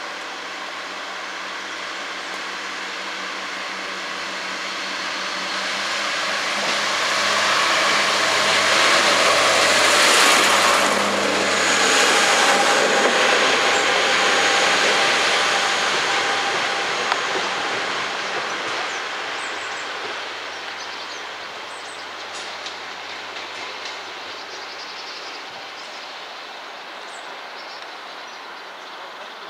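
Class 142 Pacer two-car diesel multiple unit passing: its diesel engine and wheels on the rails grow louder to a peak about ten to fifteen seconds in, with a thin high squeal near the loudest point, then fade steadily as it pulls away.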